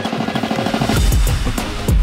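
Loud music with a drum-kit beat; heavy bass drum hits come in about a second in.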